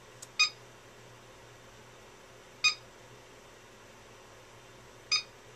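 FMA PowerLab 8 battery charger beeping three times: short, high beeps about two and a half seconds apart as it starts the charge and detects the cells. A faint click comes just before the first beep.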